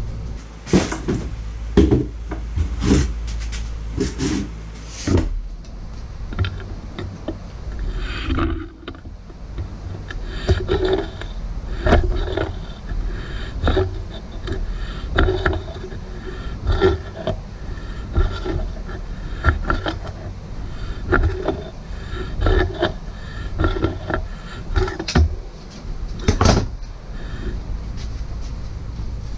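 Metal tools clinking and knocking at a workbench as large channel-lock pliers are put to the end cap of a mini excavator's hydraulic ram, over a steady low rumble. The knocks come thickest in the first few seconds and again near the end.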